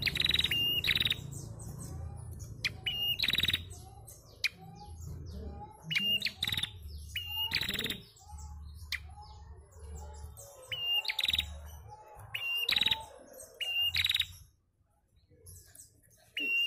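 Female prenjak calling: repeated sharp, high chirps, some ending in a short steady whistle, one to two a second, with a brief pause near the end. Fainter, lower calls repeat in the background, over a low rumble.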